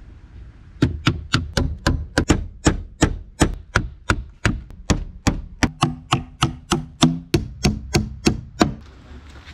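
Claw hammer nailing thin cedar planks onto a wooden frame: a steady run of sharp strikes, about three to four a second, starting about a second in and stopping shortly before the end.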